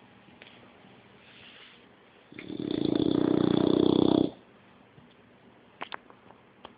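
A six-month-old English bulldog puppy snoring in its sleep. A faint breath is followed, a little over two seconds in, by one loud snore lasting about two seconds, then a quiet pause with a few faint clicks near the end.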